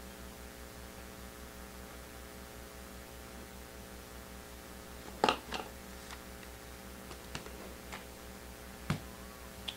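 Steady electrical mains hum with a few short clicks and rustles from trading cards being handled: a sharp pair about halfway through and another click near the end.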